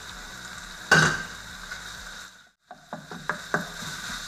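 Meat, onion and spices sizzling in oil in a pot while being stirred with a spoon: a steady sizzle, one loud clank of metal on the pot about a second in, a brief drop-out past the middle, then a quick run of scrapes and knocks.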